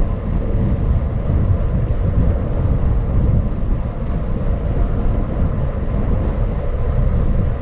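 Wind and road noise on a microphone on a bicycle coasting downhill at speed: a loud, steady, buffeting low rumble.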